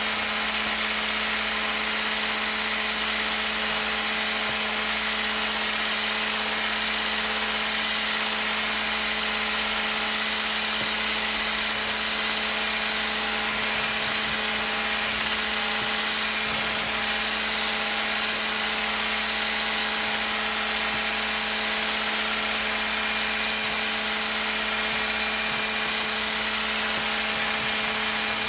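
Handheld electric milk frother running steadily, its coiled wire whisk spinning in a stainless steel bowl of melted shea butter mixture that is being whipped to thicken into lotion.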